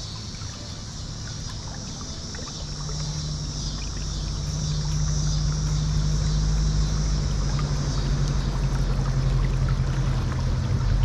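Steady rush of flowing river water, with a low rumble beneath it that grows louder about four seconds in.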